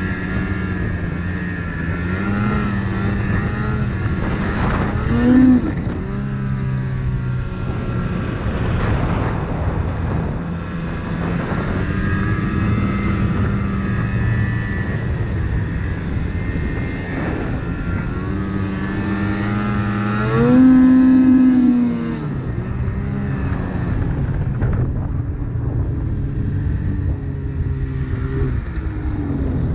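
Snowmobile engine running at speed under the rider, its pitch rising and falling with the throttle. It revs up sharply and briefly about five seconds in, and again for a couple of seconds around twenty seconds in, then eases off near the end.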